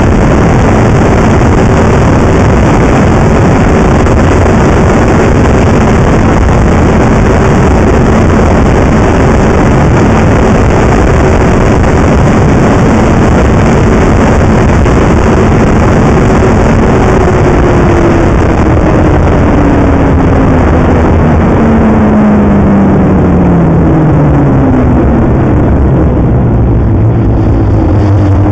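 Snowmobile engine running at a steady cruising pitch under a heavy rushing noise of wind and track. About two-thirds of the way through, the engine pitch falls steadily as the sled slows down, settling at a lower note near the end.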